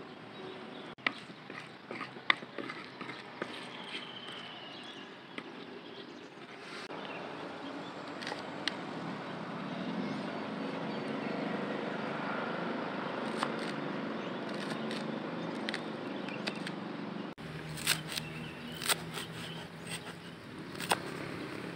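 Knife cutting a leek on a small wooden board: scattered sharp taps of the blade on the board, coming more often in the last few seconds, over steady outdoor background noise.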